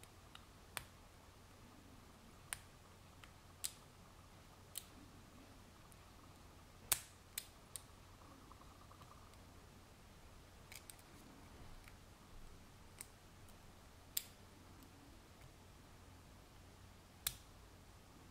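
Irregular, sharp little clicks of lock-picking tools working the wafers inside a KINBAR A260H wafer padlock, about a dozen spread out, with a few louder snaps among them.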